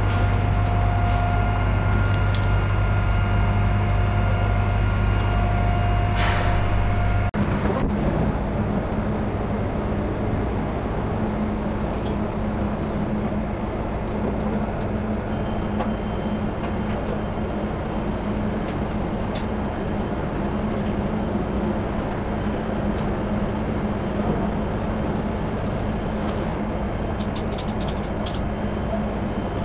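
Steady machinery hum from shipboard equipment: a strong low hum with steady tones, which changes abruptly about seven seconds in to a different even drone with a single steady tone.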